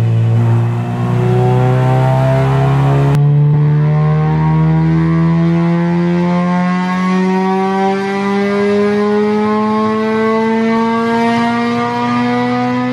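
Stock Honda K20A2 four-cylinder, breathing through a 55 mm intake restrictor, at wide-open throttle on a chassis dyno, its revs climbing smoothly and steadily through a single pull without a break. For the first three seconds it is heard from inside the stripped cabin, then from outside the car.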